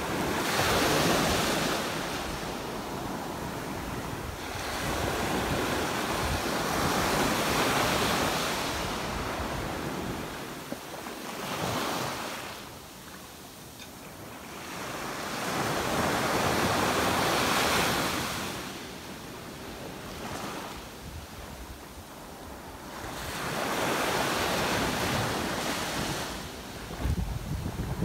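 Small ocean waves breaking and washing up a sandy beach, the surf swelling and fading every few seconds, about five washes in all. Near the end, wind buffets the microphone.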